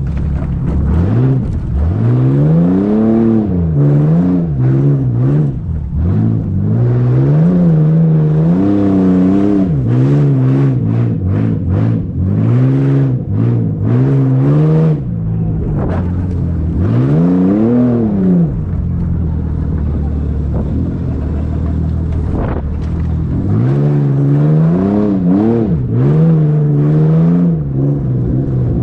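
A motor vehicle engine revving up and falling back again and again, each surge lasting a second or two, with a steadier stretch a little past the middle.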